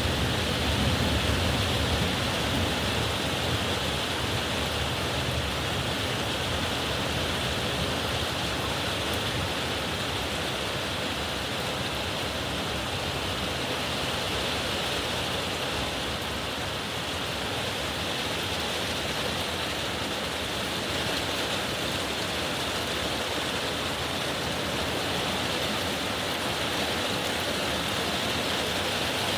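Heavy summer downpour: a steady hiss of rain. A low rumble sits under it for the first few seconds.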